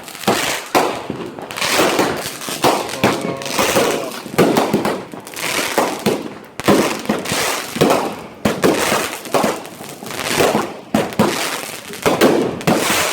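Fireworks and firecrackers going off all around: rapid, irregular sharp bangs, several a second, with crackling between them.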